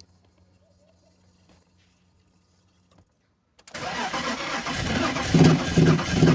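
BMW engine cranked by its starter about three and a half seconds in, with an even beat of about two pulses a second, but not catching: a no-start that the owner suspects is a fuel-delivery problem.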